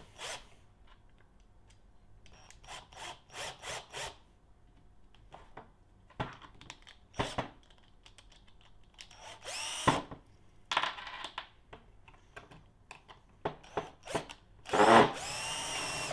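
Handheld electric driver run in short bursts, its motor whining up each time it drives a bolt into a 3D-printed plastic part, with small handling noises between the bursts.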